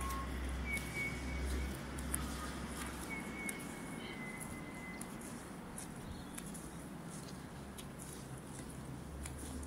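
Outdoor park ambience: scattered short, high bird chirps and a few brief whistled calls over a steady background hiss, with a low rumble during the first few seconds.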